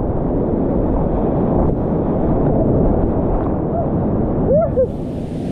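Whitewater of a steep creek rushing loudly and steadily, with a brief rising-and-falling call near the end.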